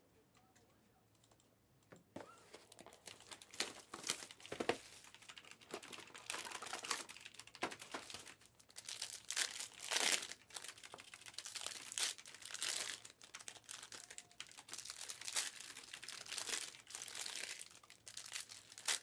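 Plastic wrapping crinkling and tearing as trading card boxes and packs are opened by hand, in irregular rustles that start about two seconds in, the loudest around the middle.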